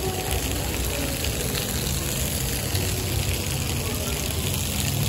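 Small fountain jets from bronze sculptures splashing onto paving stones, a steady watery hiss.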